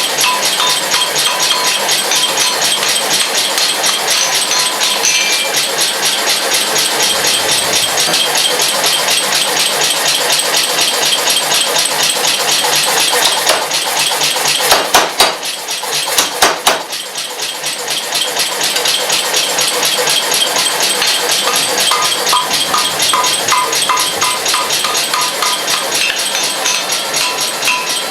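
Blacksmith's forge running hot with its air blower on for a welding heat: a steady, loud rush with a fast, even flutter. A few sharp knocks come about halfway through.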